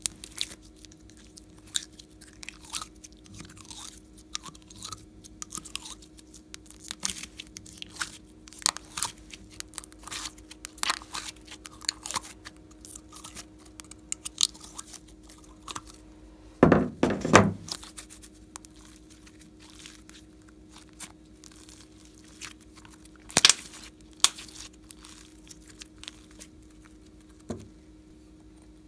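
Slime being pressed and poked in the compartments of a plastic container, with the plastic being handled: a run of small sticky clicks and crackles. There is a louder cluster of pops just past halfway, over a faint steady hum.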